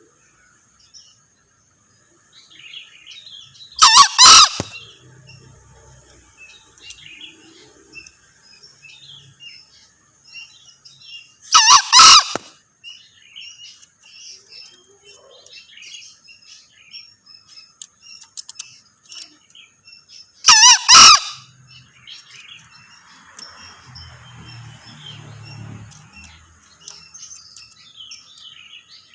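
Male green junglefowl crowing three times, about eight seconds apart, each crow a brief, loud, two-part call. Small birds chirp faintly between the crows over a steady high hiss.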